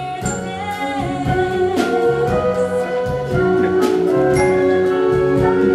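Stage-musical show tune: singing over a band, with held notes and a regular drum beat.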